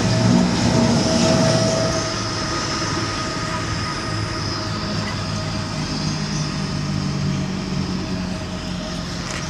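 Diesel locomotive running as it works a train, its engine drone steady under a thin, high, steady squeal, a little louder in the first couple of seconds.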